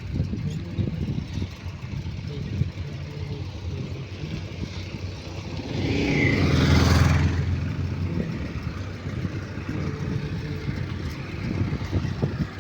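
Motorcycle running along the road, with wind buffeting the microphone. About six seconds in, another vehicle passes, swelling loud and fading away.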